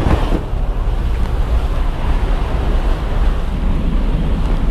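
Steady rush of air through the open door of a skydiving plane in flight, buffeting the microphone, with a short knock right at the start.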